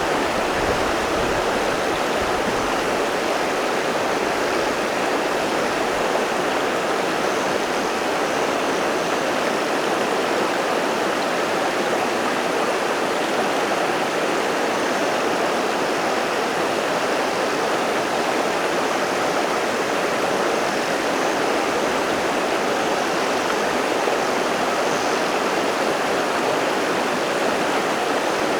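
River water rushing steadily over rocks: an even, unbroken wash of sound.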